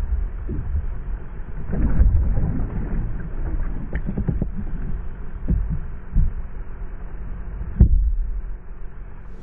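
Irregular dull thumps and knocks on a plastic kayak while a just-landed fish is handled, over a low rumble; one louder knock near the end.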